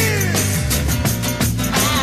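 Rock music: a band playing over a steady beat, with a held note sliding down in pitch at the start.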